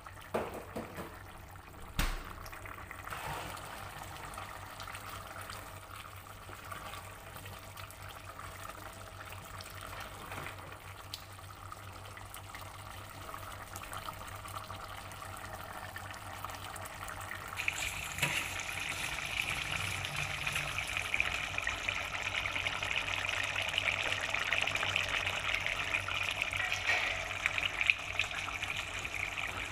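Coconut-milk vegetable stew (sayur lodeh) simmering and bubbling in a pot while a wooden spatula stirs it, with a single knock about two seconds in. The bubbling grows louder and hissier about two-thirds of the way through.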